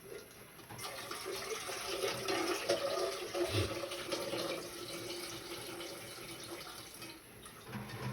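Water running from a kitchen tap into a sink, starting about a second in and running for about six seconds.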